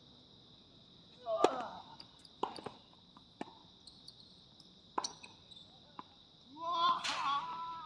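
Tennis ball struck back and forth with rackets in a serve-and-volley rally, about five sharp hits a second or so apart, over a steady high insect buzz from the trees. A short vocal shout comes with the first hit, and a longer call is heard near the end.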